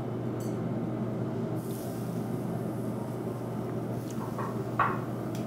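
Steady low hum of restaurant background noise, with a short hiss about a second and a half in and a few light clinks of chopsticks and grill tongs, the loudest near the end.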